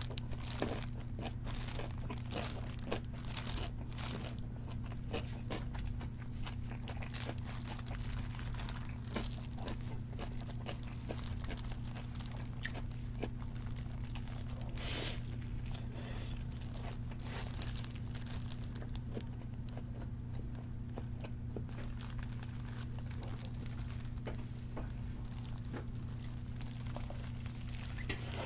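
Crispy fried chicken crunching as it is bitten and chewed close to the microphone, in bursts of crackling that are densest at the start and about halfway through. A plastic glove crinkles, and a steady low hum runs underneath.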